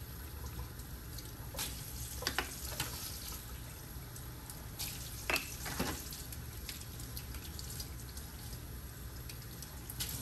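Tap water running steadily into a stainless steel sink as plastic dental impression trays are rinsed under the stream, with a few light knocks as the trays are handled.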